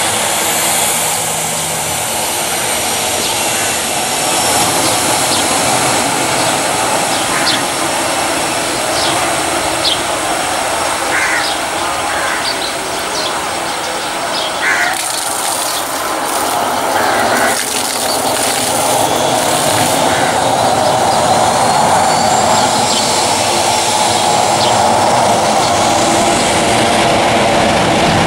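Jet engines of a Boeing 737 running steadily as the airliner taxis and lines up on the runway. The noise grows louder over the last several seconds.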